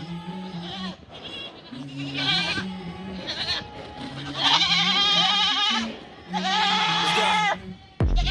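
Boer goats bleating: a few calls, the last two long and quavering, over background music with a repeating low bass line.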